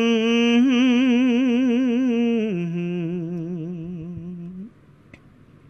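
A monk's voice chanting Khmer sermon verse. It holds one long note with a fast vibrato, drops to a lower pitch about two and a half seconds in, and fades out near the end.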